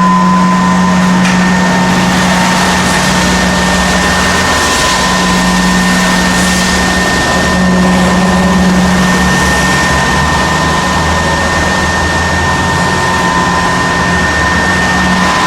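CNC router running while being jogged: a steady high whine, with a lower hum that drops out briefly a few times as the axis motion stops and starts.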